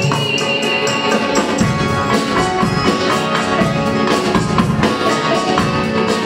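Live band playing an instrumental interlude of a Hindi film song: drum kit and hand drums keeping a quick, steady beat under sustained keyboard notes and guitars.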